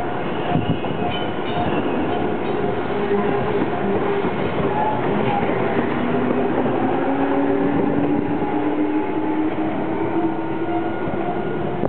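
Shizuoka Railway 1000 series electric train passing close by at low speed, wheels rolling over the rails. In the second half its motor whine rises slowly in pitch as it accelerates.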